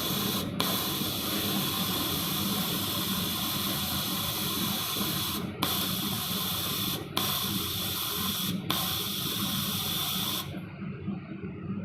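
Welding arc hissing steadily over the welding machine's low hum, breaking off briefly four times as the arc is interrupted and restruck, then stopping near the end while the hum carries on.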